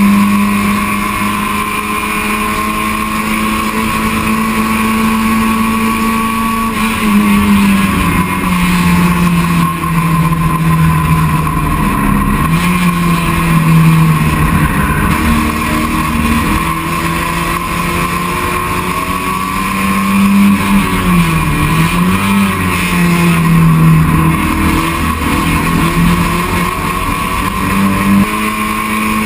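Touring race car engine running hard at high revs, heard from inside the cockpit over road and wind noise. Its pitch holds steady at first, drops a little about seven seconds in, rises and falls through the middle with a short dip about two-thirds of the way through, and climbs again near the end.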